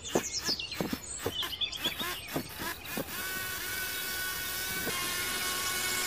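Irregular clicks and rattles of a small homemade model machine over the first three seconds, then the steady whine of a small geared DC motor running.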